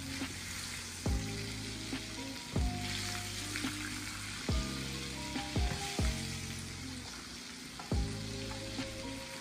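Breaded chicken fillets sizzling steadily in shallow hot oil in a frying pan, with about six sharp taps of a metal fork against the pan as the fillets are turned and pressed.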